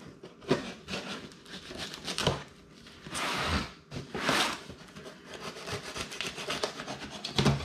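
A cardboard box being opened by hand: packing tape slit and peeled away and cardboard rubbing and scraping. There are two longer rips about three and four seconds in, then a quick run of crackling as the tape pulls off.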